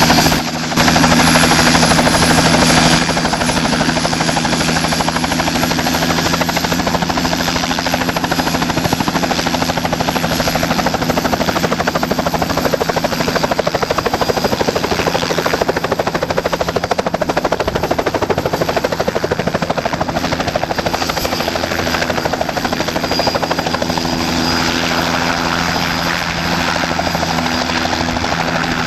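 Helicopter in flight, its rotor and engine running as a loud, steady drone with low tones, heard from aboard a small helicopter.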